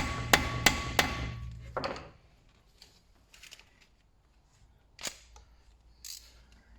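Hammer striking a 6mm Allen key to seat it in the small rusted screw that holds a BMW E60 brake disc to the hub: four quick metal-on-metal taps about a third of a second apart, with a faint ring, then a few faint knocks and clicks.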